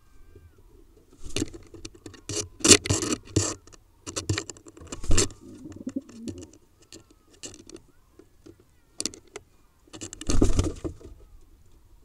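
Pigeons changing over on the nest in a wooden nest box: a run of sudden wing-flapping and scuffling bursts on the nest straw and boards, clustered in the first half, with one more sharp flurry about nine seconds in and a longer one shortly after.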